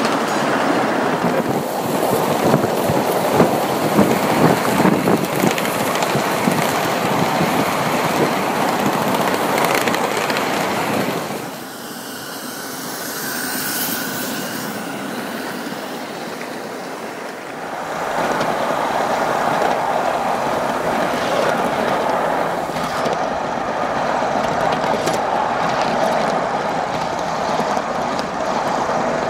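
Ridable miniature live-steam train rolling past, its loaded passenger cars' small steel wheels clattering over the rail joints in quick clicks. About halfway through the sound drops away for several seconds, then a steady rolling noise of the moving train returns.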